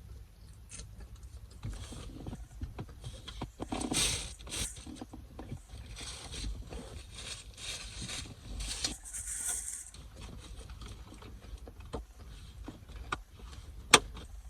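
Eating sounds: chewing sushi, with irregular rustles and light clicks from handling the food and its container, and one sharp click near the end.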